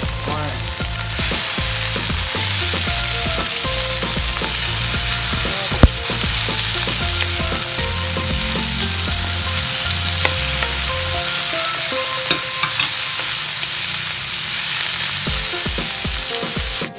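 Oil sizzling in a pan as diced fried tofu is stirred into sautéed onion, garlic and tomato, with light clicks of a spatula against the pan. One sharp knock about six seconds in.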